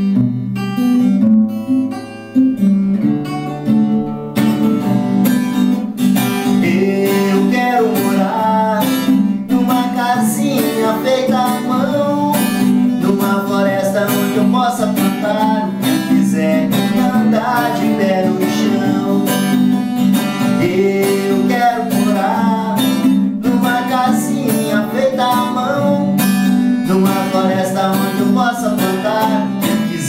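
Acoustic guitar strummed in steady chords. A man's voice singing along joins about five seconds in.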